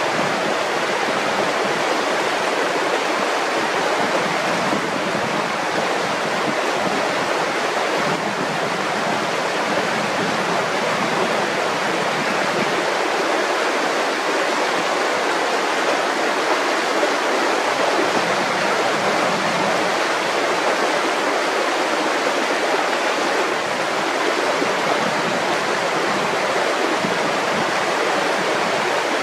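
Mountain river rushing over rocks: a steady, unbroken wash of flowing water.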